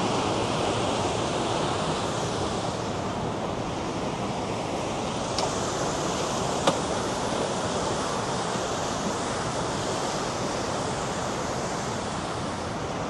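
River rapids rushing: a steady, even wash of water noise. A single sharp click sounds a little past halfway.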